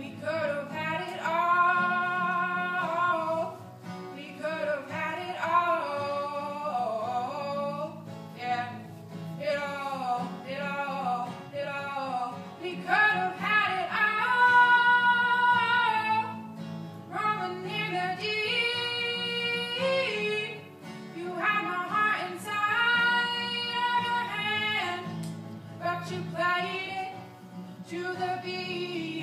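A woman singing a song in held phrases with short breaks, accompanied by an acoustic guitar, performed live.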